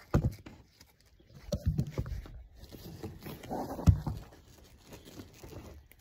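Irregular knocks and rustling from the awning's canvas and frame being handled close to a handheld phone's microphone, with a sharp knock about four seconds in.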